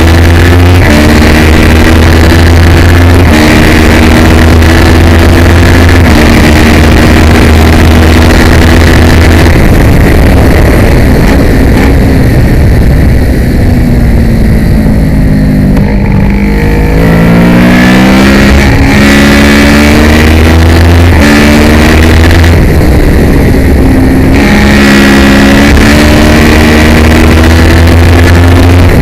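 Kawasaki ER-6 (ER650) race bike's parallel-twin engine at race revs, heard onboard: it climbs through the gears with stepped upshifts, drops away about halfway as the bike slows, then pulls hard back up through the gears, easing briefly once more near the end.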